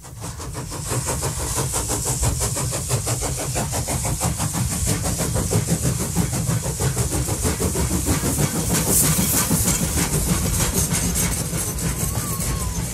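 Steam locomotive working at speed, heard from the carriages it is hauling: a quick, even run of exhaust beats over a deep running rumble and a steady hiss.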